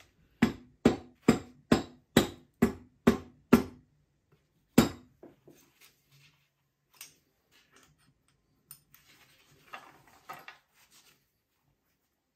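Hammer taps on a ZF 5HP24A automatic transmission's oil pump, driving it down into the case: eight in a steady run about two a second, then one more about a second later. The pump is held up by its O-ring, the mechanic thinks. Faint handling clicks follow.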